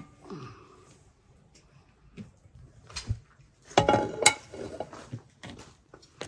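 A few scattered knocks and clinks of objects being handled. The loudest are a quick cluster about four seconds in, one with a short ringing tone.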